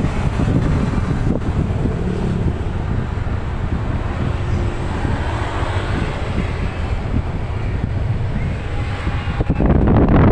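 Steady road and engine rumble inside a moving minibus, with wind noise on the microphone; it gets louder near the end.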